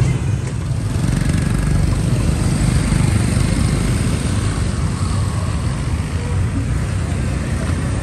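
Busy street-market ambience: a steady low rumble of vehicle engines, likely motorbikes, with no single sound standing out.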